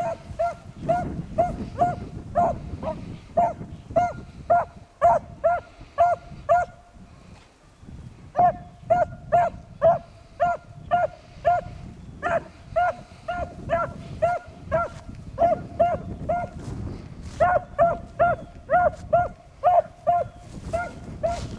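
A single beagle hound barking over and over as it runs a scent trail, about two to three short barks a second with a brief break about a third of the way in. It is the hound's voice on the track of game, typical of a beagle running a rabbit.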